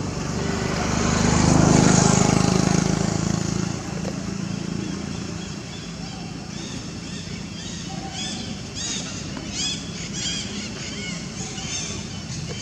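A motor vehicle passing, its engine rising to its loudest about two seconds in and fading out by four seconds. After that, a run of short high-pitched calls repeats over the steady background.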